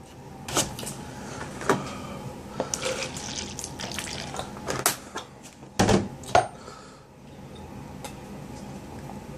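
Knocks and clinks of a drink container being picked up and handled, with liquid sloshing, then quieter drinking from it near the end.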